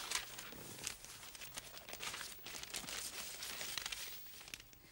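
Newspaper rustling and crinkling quietly as it is unfolded and opened up to read, a run of small paper crackles.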